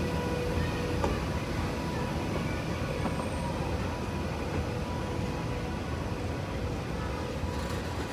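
Indian Railways freight train hauled by a WAG9H electric locomotive running by: a steady rumble of wheels on the rails, with a faint steady hum over it.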